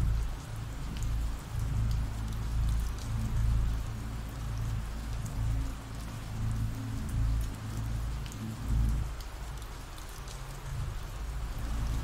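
Ambient rain sound effect: steady rain falling, an even hiss. Under it runs a low, uneven rumble with a few sustained low tones, which thin out about nine seconds in.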